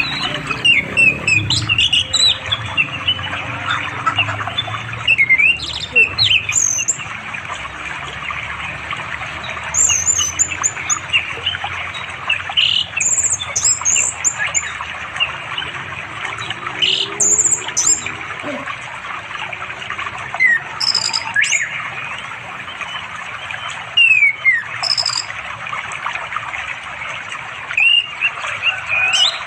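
Orange-headed thrush singing: a string of short, sharp, high whistled phrases and slurred notes with brief gaps between them, a male's song to attract a female. A steady hiss runs underneath.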